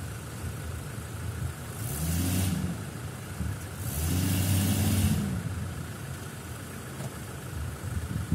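Jeep Wrangler engine revving up and back down twice, about two seconds apart, straining to climb out of a muddy, water-filled ditch. Each rev comes with a hissing rush, and the engine idles between them.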